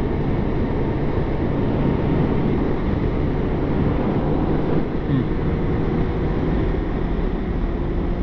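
Kawasaki motorcycle running steadily at cruising speed, its engine note under a heavy rush of wind noise on the microphone.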